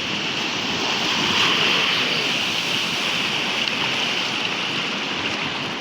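Steady rush of waves and moving water.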